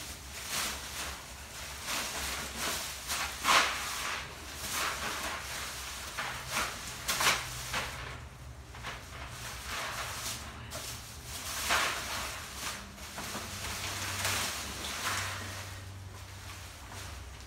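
Plastic grocery bags rustling and crinkling in irregular bursts as they are picked up and gathered by hand.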